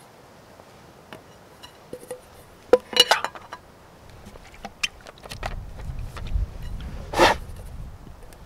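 Hard-anodized aluminium pots of a Trangia 27 cook set being handled, with several sharp metallic clinks about three seconds in and a louder ringing clank about seven seconds in. A low rumble runs under the second half.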